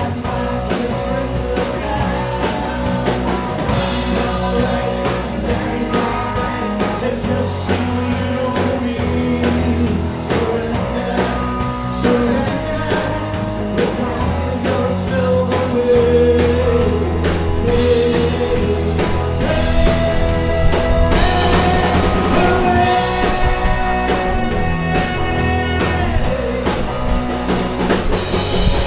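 Live rock band playing through a PA: electric guitars, bass and drum kit with a sung lead line. The band gets fuller and brighter a little past the two-thirds mark.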